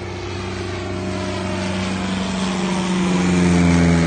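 Single-engine propeller light airplane flying low overhead. Its engine drone grows louder and drops in pitch near the end as the plane passes.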